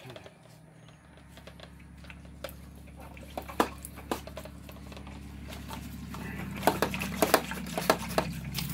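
Sharp clicks and taps from a hand-pump pressure sprayer being handled and pumped, several in quick succession near the end, over a low hum that slowly grows louder.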